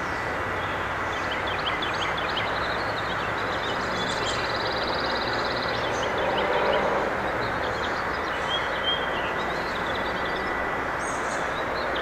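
Steady drone of a lawn mower engine running, with small birds chirping over it and one rapid, even trill of bird notes a few seconds in.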